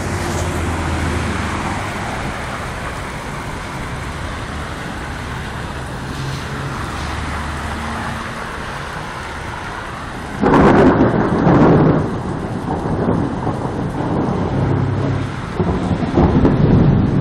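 Torrential rain pouring onto a paved parking lot: a steady, dense rushing hiss. About ten seconds in it turns louder and deeper, with an uneven rumble that goes on to the end.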